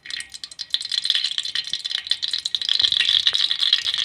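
Cooking oil crackling and sizzling as it is poured into a hot, empty aluminium pressure cooker: a dense, fast crackle of tiny pops that starts at once and grows thicker about a second in.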